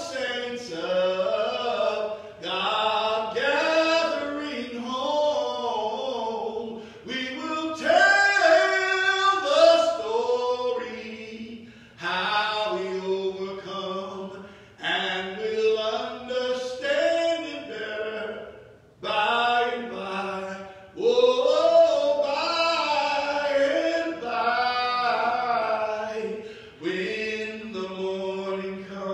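A man singing a slow gospel hymn a cappella into a microphone: long, drawn-out, sliding notes in phrases, with short breaks for breath between them.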